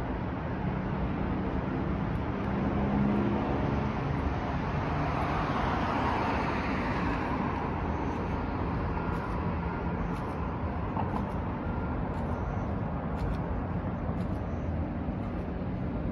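Steady city traffic noise, with one vehicle passing that swells and fades around the middle.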